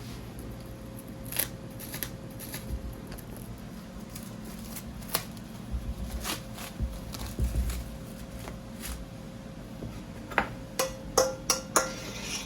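Scattered light knocks and taps of hand work at a dumpling stall, over a faint steady hum. Near the end comes a quick run of five or six sharp, briefly ringing clinks, like dishware or metal utensils knocking together.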